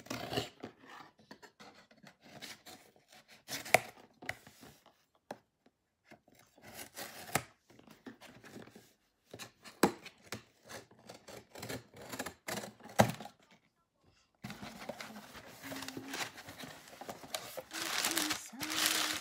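Packing tape on a cardboard box being cut with a blade and pulled off in short, separate scrapes and rips. From about two-thirds of the way in, the box flaps are opened and brown packing paper is crumpled and rustled steadily.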